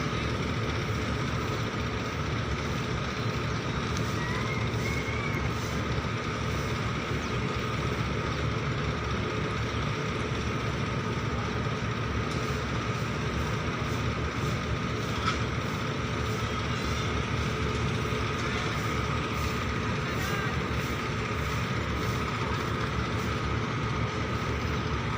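Hydra crane's diesel engine running steadily while working a lift, with a steady whine above it.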